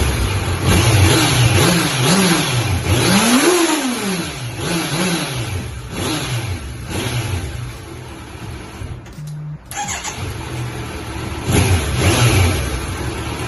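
Kawasaki Z900 inline-four engine revving in repeated throttle blips, its pitch rising and falling several times. The sound breaks off briefly about two-thirds of the way through, then the engine carries on running.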